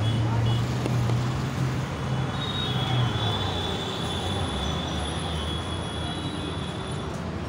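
Metro train passing, a low rumble through the first few seconds and then a steady high wheel squeal from about two seconds in that fades near the end, over a haze of street noise.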